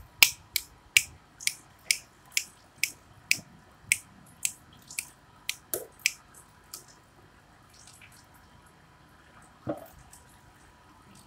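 A run of sharp wet slaps, about two a second, as a baby's palm pats the wet tiled wall, fading out about six seconds in, over the faint trickle of a running tap. A single duller thump comes near the end.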